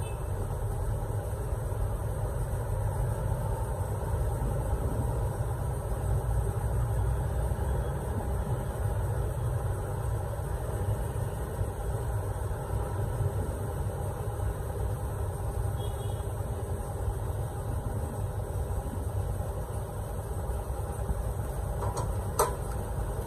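Steady low background rumble, even throughout, with a short sharp rustle near the end.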